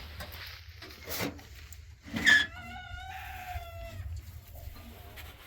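A rooster crowing once, about two seconds in: a loud start and then a drawn-out pitched call that falls slightly as it ends.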